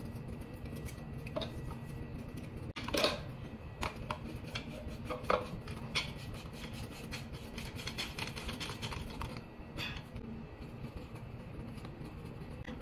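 Small plastic plumbing parts being handled: white thread seal tape stretched and wrapped around a plastic water meter's threaded outlet, then a plastic pipe fitting screwed onto the threads. There is a sharp crackle about three seconds in, and a run of fine, rapid ticks from about six to nine seconds in.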